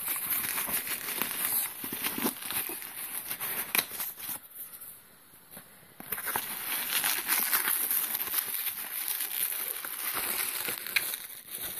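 Cardboard mailer box being handled and opened by hand: rustling and scraping of cardboard with crinkling of plastic bubble wrap. There is a quieter lull about halfway through.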